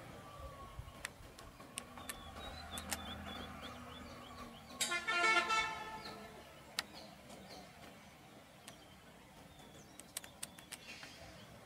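A vehicle horn sounds for about a second near the middle, over a faint idling engine.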